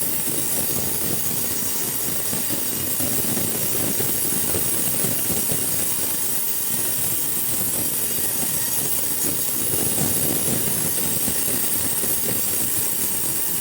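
Sawmill machinery running with a steady, noisy rumble.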